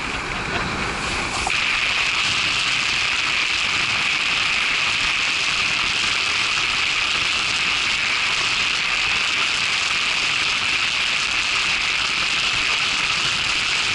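Steady rushing hiss of water spraying past a windsurf board under sail. For the first second and a half it is rougher, with a few splashy clicks, and then it settles to an even hiss.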